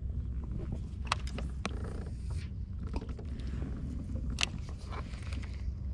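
Scattered sharp clicks and creaks of fishing gear being handled on a kayak, over a low steady rumble.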